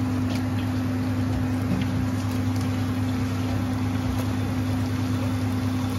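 A steady mechanical hum with a low drone, and a few faint soft knocks as raw chicken pieces drop into a pot of masala.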